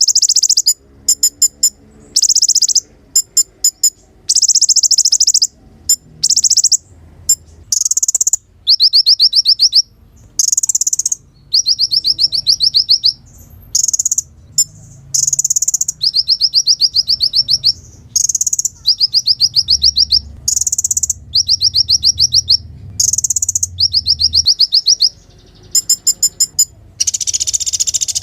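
Kolibri ninja sunbird singing: rapid, high trills of about half a second to a second each, repeated with short breaks between them, mixed with quick bursts of sharp ticking notes.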